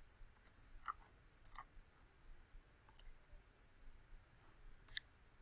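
Computer mouse clicks, faint and scattered: several single clicks and a couple of quick pairs, unevenly spaced.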